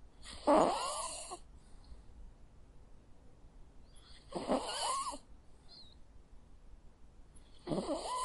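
A sleeping dog snoring: three slow snores, each under a second long, about three and a half seconds apart.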